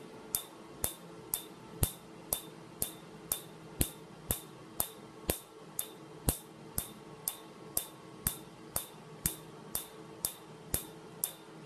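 PicoWay picosecond tattoo-removal laser firing pulses into the tattooed skin: sharp snapping clicks at a steady two a second, each with a brief high ringing tone, over the low steady hum of the laser unit.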